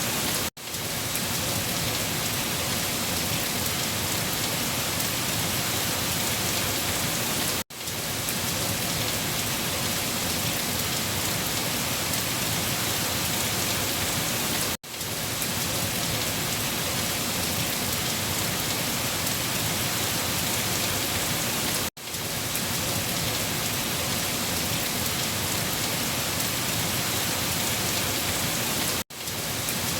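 Heavy rain falling on leaves, a steady dense patter. The sound cuts out for an instant five times, about every seven seconds, and quickly swells back in.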